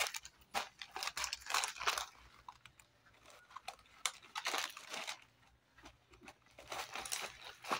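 A hand rummaging through a small cloth handbag, its contents rustling and crinkling in short, irregular scrapes.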